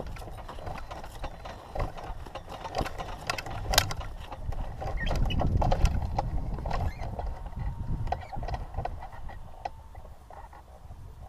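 Hang-glider take-off run: irregular clattering footfalls and knocks, with wind buffeting the microphone that swells to its loudest about halfway through and then eases.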